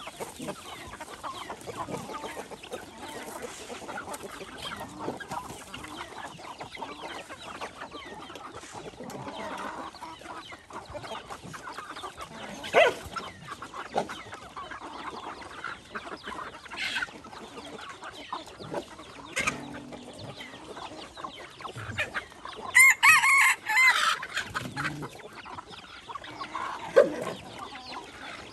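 Chickens clucking around a pack of feeding dogs, with a rooster crowing once, loudly, about three-quarters of the way through. A few short sharp sounds stand out here and there.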